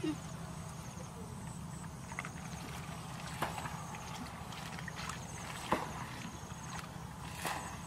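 Hands groping through shallow muddy water, with a few short splashes about three and a half seconds in, near six seconds and near the end. A steady low hum and faint insect buzzing run underneath.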